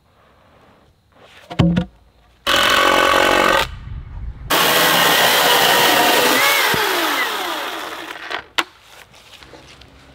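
Chainsaw cutting through a wooden fence post: a brief free run that starts and stops abruptly, then a longer cut in which the motor's pitch falls under load before it winds down. A knock comes just before the saw starts.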